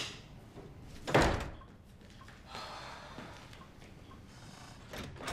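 A light switch clicks, then about a second later a door shuts with a dull thud.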